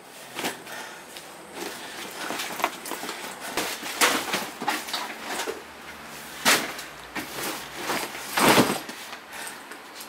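Handling and rummaging sounds as a plastic crate and suitcases are moved: rustling, with several sharp knocks and clatters, the loudest about four, six and a half and eight and a half seconds in.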